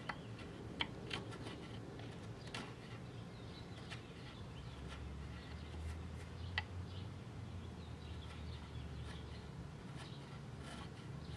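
Hand chisel paring a walnut wood plug flush with a chair leg: faint, irregular scrapes and small clicks as the blade shaves off chips.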